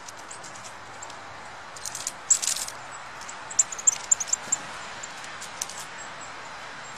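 Small birds giving short, high chirps, several in quick succession about halfway through, over a steady hiss, with a brief burst of rustling or crunching just before the chirps.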